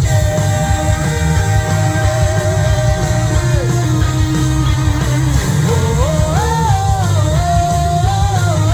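Live rock band playing: bass and drums under a long held lead melody line that holds its notes, then slides and bends between pitches in the second half.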